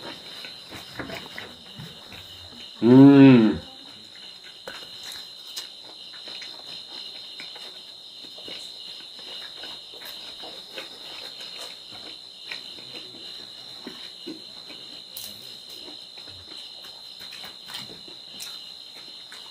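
Steady high chirping of crickets, with faint clicks of chewing and mouth sounds from someone eating pork and rice by hand. About three seconds in, one short loud voiced sound, rising then falling in pitch, lasts about half a second.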